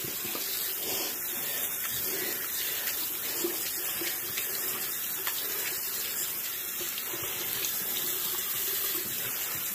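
Water running steadily, an even hiss.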